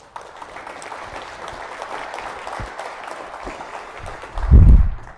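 Audience applause that stops near the end, with a loud low thump about four and a half seconds in.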